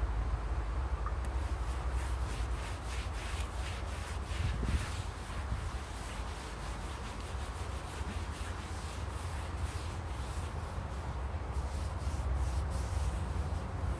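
Repeated rubbing or scrubbing strokes, several a second, over a steady low rumble.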